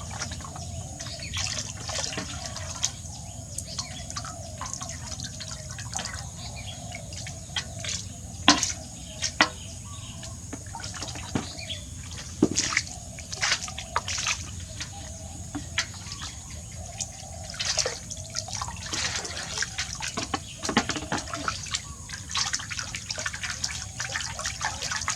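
Bathwater splashing and dripping as a pet monkey is bathed: irregular small splashes and drips, with a few louder splashes about a third of the way through.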